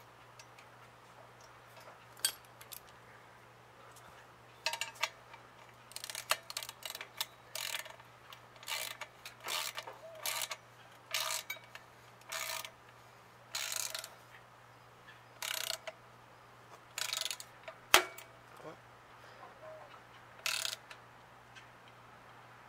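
A wrench tightening a nut down onto a lock washer on the muffler bracket bolt of a motorized bicycle: short, irregular metal-on-metal turning strokes, one or two a second, from about five seconds in, with one sharp click near the end.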